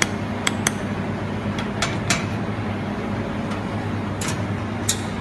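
Steady hum of a running fiber laser welding machine, its power supply and cooling fan, with a handful of sharp, irregularly spaced clicks over it.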